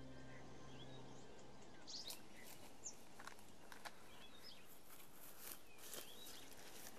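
Faint outdoor ambience with small birds chirping now and then and a few short rustling steps through dry grass and weeds. Soft music fades out in the first second or so.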